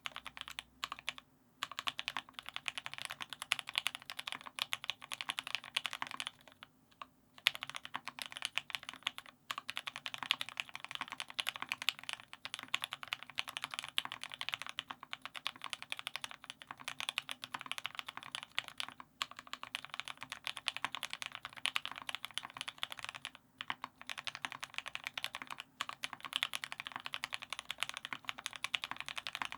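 Fast, continuous typing on a custom mechanical keyboard with an aluminium plate, lubed linear Tealios V2 switches fitted with Cherry black tops, and GMK doubleshot keycaps, giving dense clacks with a few brief pauses.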